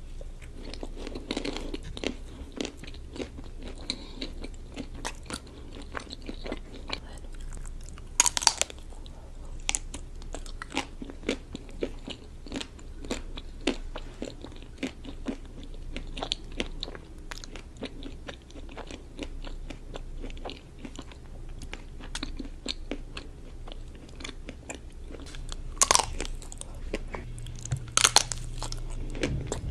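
Biting into chocolate-coated ice cream bars. The hard chocolate shell cracks sharply with a bite about eight seconds in and twice near the end, with steady chewing and small crunches of shell in between.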